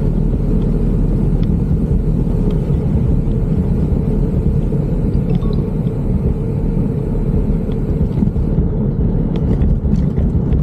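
Wind buffeting the microphone of a bicycle coasting fast downhill: a loud, steady low rumble, with a few light clicks near the end.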